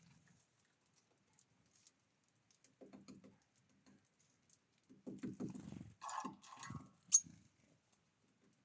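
Small birds on a feeder: soft pattering taps and flutters in two bursts, with a single sharp click just after the second.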